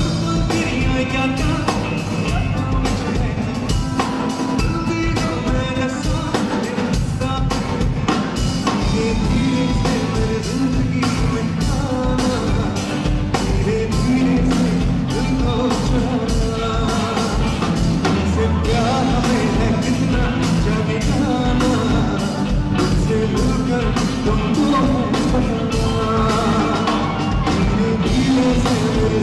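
Live band playing a Bollywood song: a male singer over electric guitar, bass guitar, keyboard and a drum kit keeping a steady beat.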